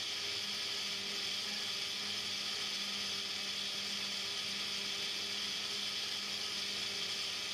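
Small electric food mixer motor running steadily at full speed, mixing a chocolate mousse mixture: an even whir over a low motor hum.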